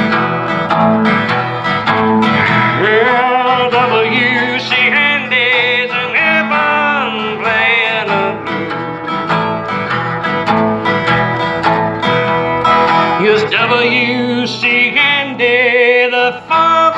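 Blues song in an instrumental break: a resonator guitar plays lead, with bending, wavering notes over a sustained backing.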